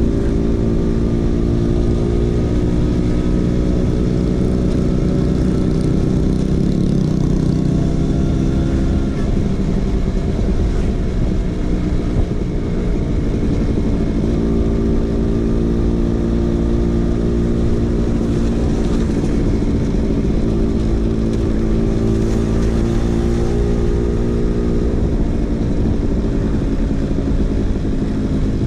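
Vespa PX 150's single-cylinder two-stroke engine running through a DRC Victory racing exhaust, its pitch rising and falling slowly as the revs change.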